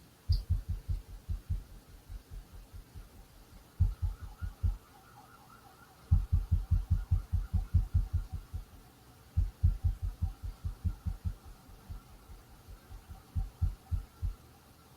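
Repeated dull, low-pitched banging in quick runs of about five or six knocks a second, each run lasting one to three seconds with short pauses between.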